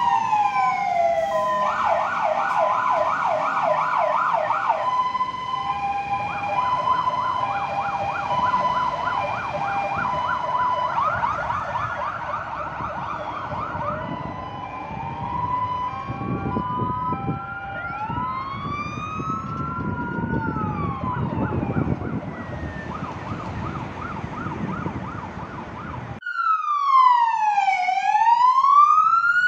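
Fire engine sirens sounding together: a fast yelp over a steady two-tone hi-lo, then slower wails with engine rumble as the trucks drive off. About 26 s in, it switches abruptly to a police car's louder wailing siren, rising and falling evenly.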